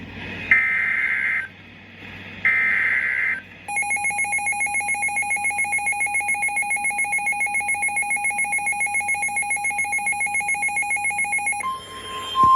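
Emergency Alert System tones: the last two bursts of the screechy digital SAME header, then about eight seconds of the two-tone EAS attention signal, steady with a fast flutter. Right at the end a single steady tone begins, the NOAA Weather Radio 1050 Hz alert tone that precedes the relayed tornado warning.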